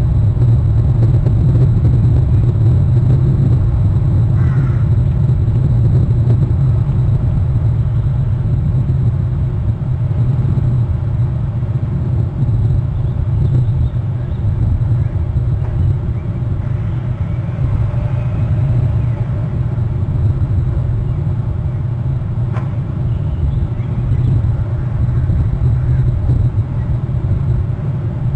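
Wind rumbling steadily on an outdoor nest-camera microphone, a loud low roar with no let-up. A faint short chirp comes about four and a half seconds in.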